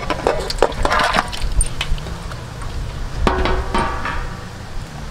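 Stainless steel tray clinking and knocking against a stainless steel bowl as raw chicken pieces are tipped off it into the bowl. There is a cluster of clinks in the first second and a half, and another clatter at about three and a half seconds.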